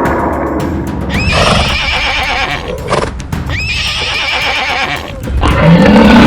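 Horse whinnying sound effect: two long neighs, one after the other, over background music.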